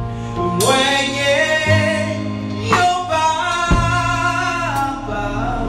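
Gospel worship music: a voice singing two long, held phrases over a steady bass line and instrumental backing, with a few sharp drum hits.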